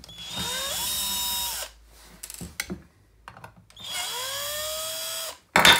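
Cordless drill-driver spinning up twice in runs of about a second and a half, its whine rising in pitch and then holding, as it backs out the end-cap screws of an e-bike controller case. A sharp, loud clatter near the end.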